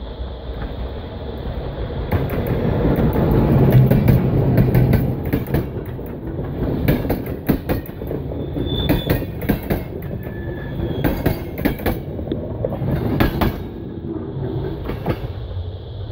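CFR Class 40 (060-EA) electric locomotive and its passenger coaches passing close by. A low hum builds to a peak as the locomotive goes past about four seconds in. Then the coaches' wheels clatter over the rail joints in rapid sharp clicks, and the sound eases off as the train draws away.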